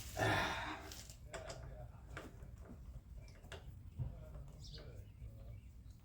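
Small clicks and light rattles of screws and metal parts being handled and fitted while a push mower's carburetor is put back together, with a short louder burst of rustling noise just after the start and a sharper click about four seconds in.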